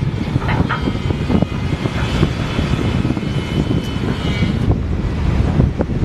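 Wind buffeting the microphone: a rough, gusting low rumble, with faint thin high tones from about two to nearly five seconds in.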